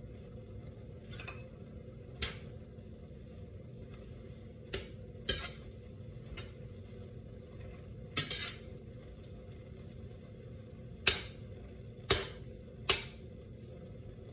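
A metal spoon stirring beef and onions in a white enameled cast-iron skillet, clinking against the pan about eight times at uneven intervals, loudest in the second half.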